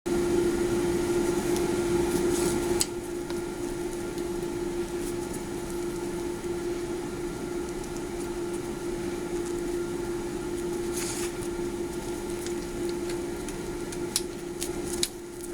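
Steady mechanical hum with one constant tone. It drops in level about three seconds in, and a few faint clicks come near the middle and end.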